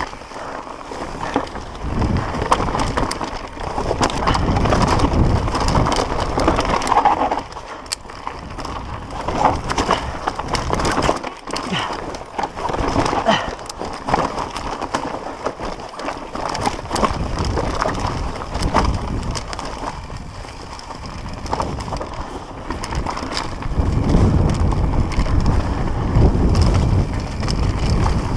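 Mountain bike descending a rough dirt and rock trail at speed: tyres grinding over dirt and stones while the bike rattles and clicks constantly over the bumps. Rushing wind buffets the microphone, heaviest about two seconds in and again for the last few seconds.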